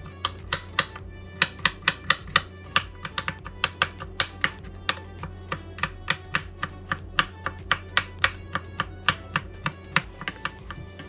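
Chef's knife chopping and mincing garlic on a bamboo cutting board: quick, irregular knocks of the blade on the wood, about three or four a second, stopping shortly before the end. Background music plays underneath.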